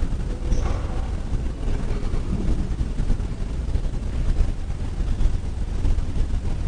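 Continuous low rumbling noise, deep in pitch and uneven in loudness.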